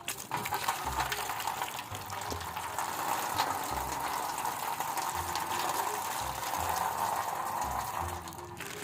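Water running steadily, like a tap filling a container, with a rushing sound that stops shortly before the end.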